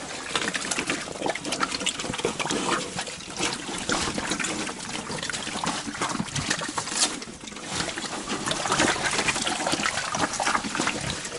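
Pigs chomping and crunching thrown corn, a dense, continuous crackle of many mouths chewing and smacking.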